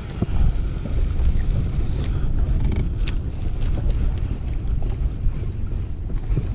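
Wind rumbling steadily on the microphone, with scattered light clicks as a baitcasting rod and reel is cast and the lure reeled in; the sharpest click comes about three seconds in.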